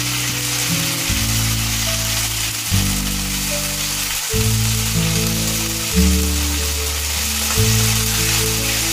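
Background music of held low chords that change every second or two, over mustard oil sizzling in a frying pan as ginger paste, cumin and bay leaves fry.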